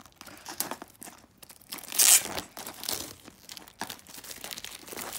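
Thin plastic packaging film crinkling and tearing as it is pulled off a clear plastic charm case, in irregular crackles with one louder rip about two seconds in.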